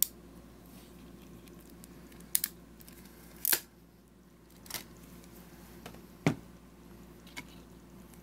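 A handful of sharp, separate clicks and taps about a second apart, with one quick double click, as a crimp connector and wire are handled in the jaws of a ratcheting crimping tool. A faint steady hum lies underneath.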